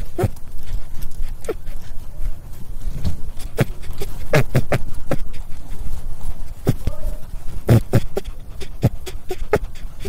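Rabbit making a string of short, sharp noises at irregular intervals, some with a brief low-pitched tone, over a steady low rumble.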